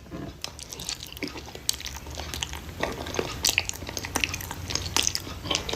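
Close-up eating sounds: a person chewing saucy noodles and food with their mouth, with irregular wet smacks and clicks.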